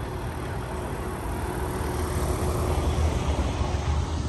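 Car on the move: a steady low rumble of engine and road noise with a faint steady hum, swelling a little past the middle.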